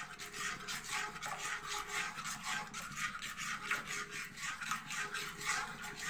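A metal fork stirring thick cooked mango pulp in a kadhai, scraping and rubbing against the pan in quick regular strokes, about three a second.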